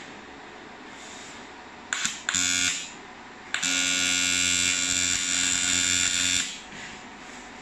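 TIG welding arc tacking a bicycle frame in its jig. There are two brief buzzing tacks about two seconds in, then a steady buzzing arc lasting nearly three seconds that cuts off sharply.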